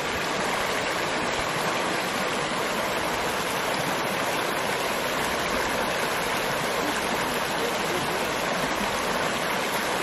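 Shallow rocky creek running over and around stones, a steady, even sound of flowing water.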